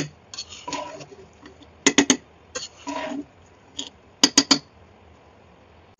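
Spatula knocking against a pan in quick clusters of three or four taps, about two seconds in and again past four seconds, with softer scraping and rustling between as cooked rice is stirred and mixed.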